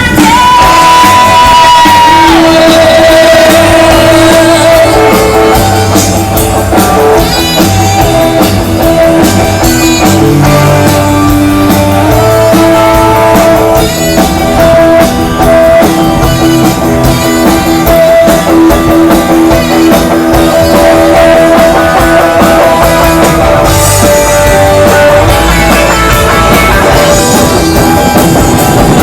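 Rock band playing loudly over a stage sound system, with singing and guitar.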